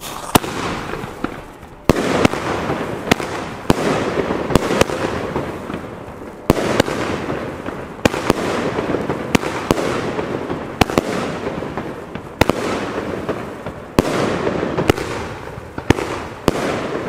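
Argento Opal 30 mm consumer firework battery firing shot after shot. Each shot is a sharp bang followed by a noisy rush that fades away, and they come about once every second to second and a half.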